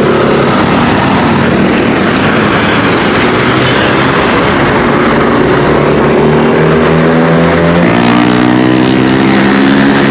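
Yamaha scooter engine running as the scooter pulls away and speeds up, its note climbing steadily in the last couple of seconds. A constant rush of wind on the microphone runs under it.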